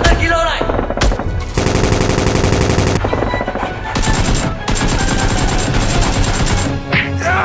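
Rapid automatic gunfire in two long bursts, the first starting about a second and a half in and the second about four seconds in, with scattered single shots and background music.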